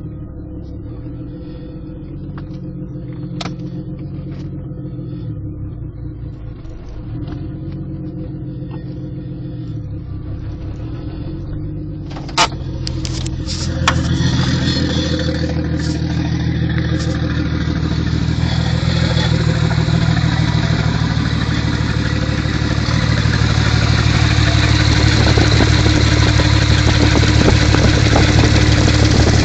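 Toyota 7M-GTE turbocharged inline-six in a Mk3 Supra running with rod knock, the sign of a worn connecting-rod bearing. After two sharp clicks about halfway through, the engine gets louder and keeps building.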